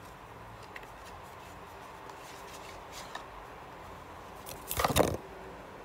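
Sunscreen packaging, a paper carton and a plastic tube, handled close to the microphone. A few faint clicks come first, then a short loud rustling scrape about five seconds in.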